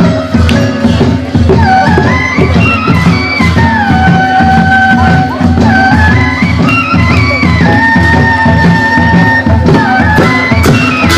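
Loud Kirat Rai folk dance music for the Sakewa circle dance: a quick, steady drum beat under a melody of long held notes that step up and down in pitch.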